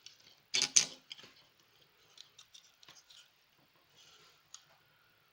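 A power supply board being set into an aluminium case for a test fit. There is a loud double knock about half a second in, then light clicks and scrapes as it is handled and shifted into place.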